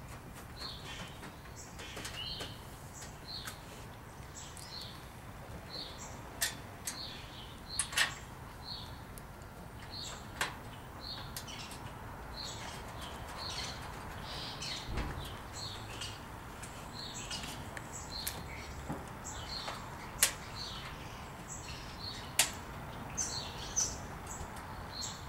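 A bird chirping repeatedly and steadily, about one or two short chirps a second, with a few sharp clicks and knocks scattered through.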